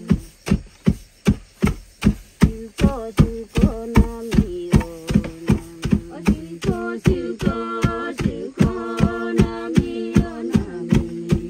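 Long wooden pestles thudding into paddy in a trough, several women striking in turn at about four thuds a second to husk the rice. Voices sing a slow song with long held notes over the pounding.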